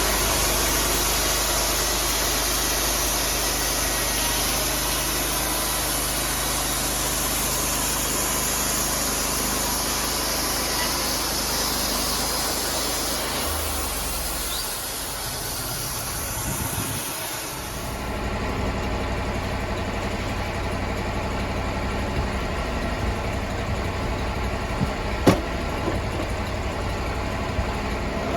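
Sawmill engine running steadily while the blade cuts through a log, with a bright hiss over the engine sound. About two-thirds of the way in the cutting hiss drops away and the engine keeps running. There is one sharp click near the end.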